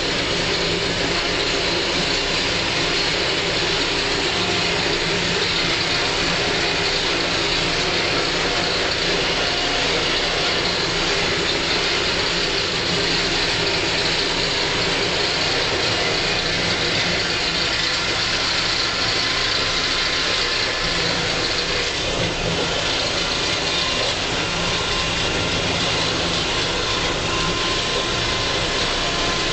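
Valtra 6800 TwinTrac tractor's diesel engine running steadily under load, heard from inside the cab, as it drives a 3-metre pasture topper through tall grass.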